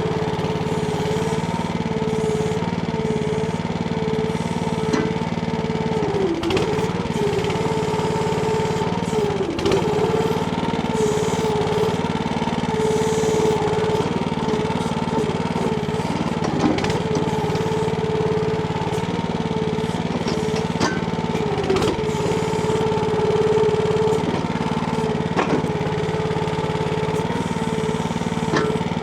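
Small engine of a Timco ATV-570R backhoe running steadily with a whine, its pitch dipping briefly about six times as if under load, with a few sharp knocks in between.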